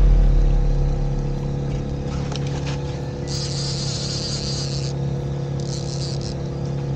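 Boat engine running steadily at trolling speed, with a loud low boom fading over the first second. From about three seconds in, a fishing reel's drag buzzes in short bursts as a hooked king salmon pulls line off.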